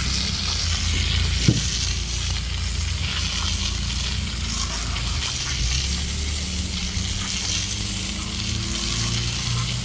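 Steady hissing spray of water rinsing mud off freshly sawn walnut boards, over a steady low engine hum, with one sharp knock about one and a half seconds in.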